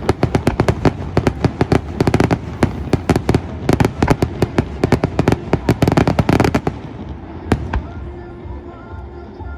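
Fireworks display in a rapid barrage: dense, fast-following bangs and crackles for about seven seconds, then thinning to a few single bangs and dying down.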